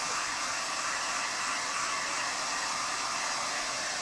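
Handheld hair dryer blowing steadily, a constant rushing hiss.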